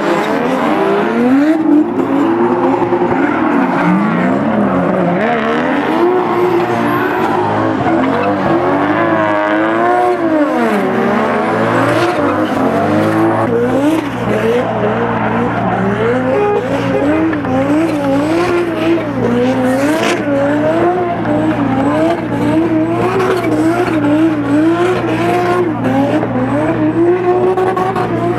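Drift car engine revving up and down again and again as the throttle is worked through a slide, over squealing tyres. About halfway in, a steadier, lower engine hum joins underneath.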